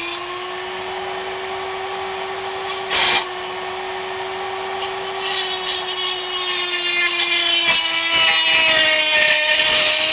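A small corded rotary tool running at a steady high speed while it grinds through the thin aluminium of a soda can, trimming away excess material. The grinding comes in briefly about three seconds in and again, longer and louder, from about halfway through, and the motor's pitch sags slightly under the load.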